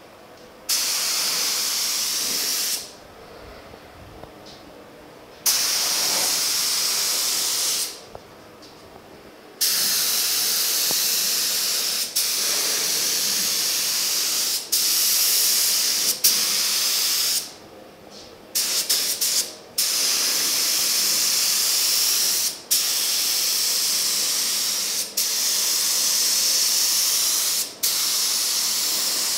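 Compressed-air gravity-feed spray gun hissing as it sprays a coat of reduced polyester primer. It comes in trigger pulls of a few seconds with short breaks, then runs almost continuously in the second half, broken by brief stutters and a few quick taps of the trigger.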